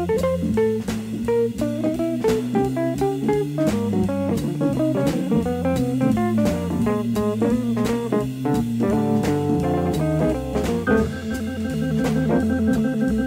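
Instrumental jazz-blues music with guitar, bass and drum kit playing a busy rhythmic line. About eleven seconds in, the guitar line gives way to sustained chords.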